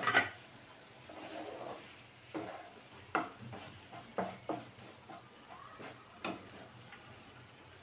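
Wooden spatula stirring vegetables in a metal frying pan over the flame: a string of scrapes and light knocks against the pan, over a faint sizzle from the hot masala.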